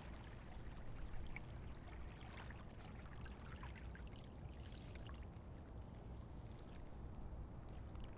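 A steady rushing, trickling noise like running water, with scattered faint ticks, fading away near the end.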